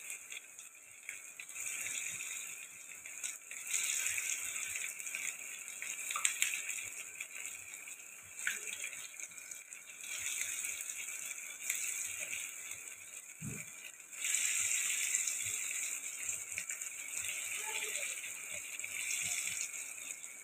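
Chicken pieces deep-frying in hot oil in a pan: a crackling sizzle that rises and falls, growing louder about two-thirds through as more pieces go into the oil. There is a dull knock just before it swells.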